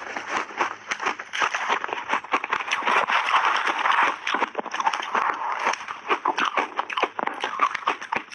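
Shaved ice being bitten and chewed, a dense, continuous run of crisp crunches and crackles.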